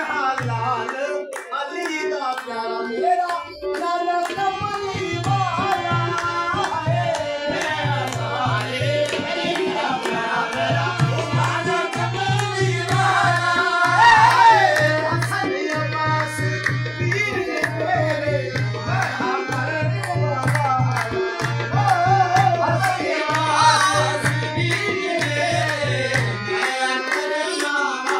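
Saraiki qasida sung in qawwali style over tabla, with a steady low tone under the voice that breaks off briefly a few times.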